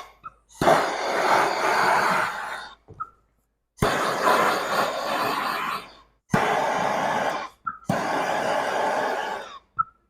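Torch hissing in four bursts of about two seconds, each ending with a brief high blip, heating a seized part of a Polaris 850 two-stroke engine to free it.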